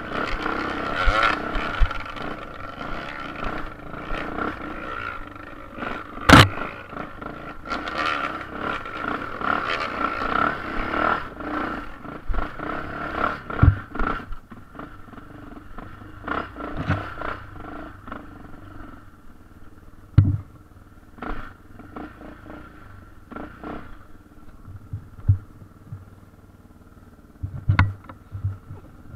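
Yamaha TT600R enduro motorcycle's single-cylinder engine running at low speed up a rocky trail, with sharp knocks now and then as the bike strikes stones. The engine is quieter in the second half.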